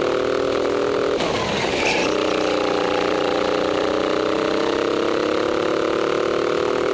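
Go-kart engine running hard, dropping in pitch as the throttle is lifted about a second in, then rising slowly in pitch as it accelerates again, with another lift near the end.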